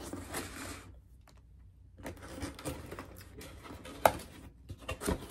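Hands handling a cardboard gift box and its string tie, with light rustling and scraping as the lid is worked open, and one sharp tap about four seconds in.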